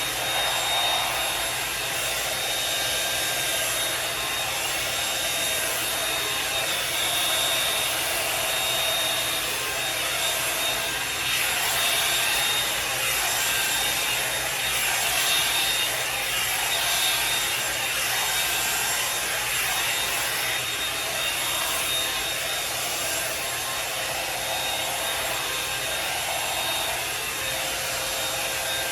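Revlon One-Step hair dryer and styler brush running steadily, its fan blowing with a thin steady whine. Over it comes a repeated rubbing as the brush is drawn through the hair.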